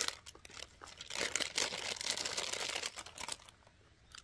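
Clear plastic bread bag crinkling as it is handled, a dense run of crackles that dies away about three and a half seconds in.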